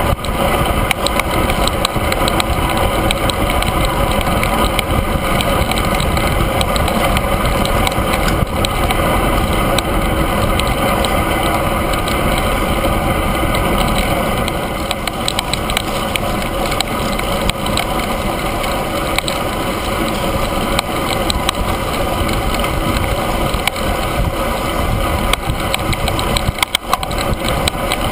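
Loud, steady rush of wind over the microphone of a handlebar-mounted camera on a moving road bike, mixed with the hum of its tyres on asphalt.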